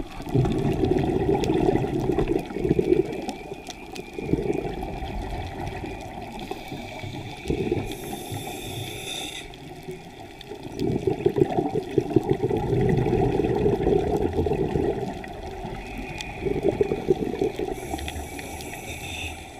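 Scuba diver's regulator breathing heard underwater: exhaled bubbles gurgling in irregular bursts of one to four seconds, with a short higher hiss twice, near the middle and at the end.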